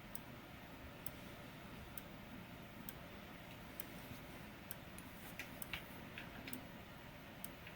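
Simplex TrueAlert 15-candela fire-alarm strobe flashing in free-run mode, giving a faint sharp click with each flash, a little under once a second. A few softer clicks fall between them near the middle.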